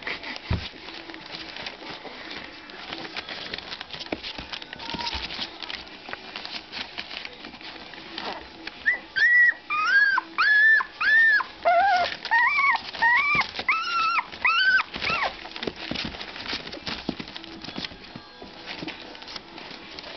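Puppies scrabbling and scratching about in a box. About nine seconds in, a puppy gives a run of short, high-pitched whimpering cries, each rising and falling, about two a second for some six seconds.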